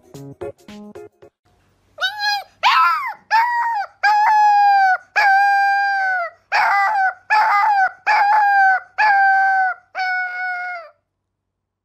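A husky-type puppy howling: about a dozen high-pitched howls, mostly short, with two held for over a second, stopping shortly before the end. A little background music fades out in the first second.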